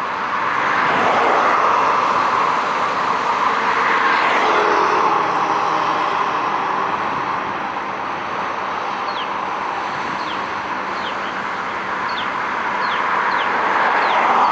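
Steady wash of passing traffic noise, swelling near the start and again near the end, with a bird giving short, falling chirps over and over through the second half.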